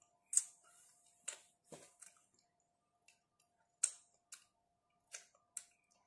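Mouth sounds of someone eating soft durian flesh by hand: about seven sharp, wet lip smacks and mouth clicks spread irregularly, as he chews and licks his fingers. A faint steady hum runs underneath.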